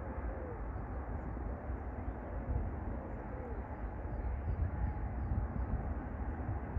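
Outdoor ambience with a steady low rumble. A dove coos faintly a few times over it, and faint small-bird chirps come in partway through.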